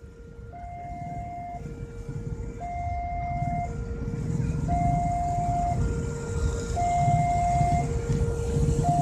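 Railway level crossing warning alarm sounding a two-tone signal, a lower and a higher note alternating about once a second each, while an approaching diesel locomotive's engine rumble grows steadily louder underneath it.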